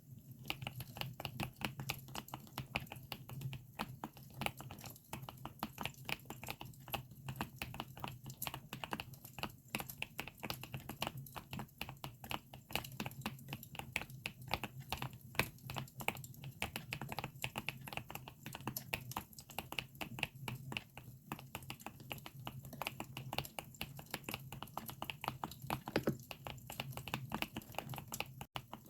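Steady, rapid typing on a GMK67 mechanical keyboard with Akko Lavender switches, a continuous run of quick key clicks under a steady low hum.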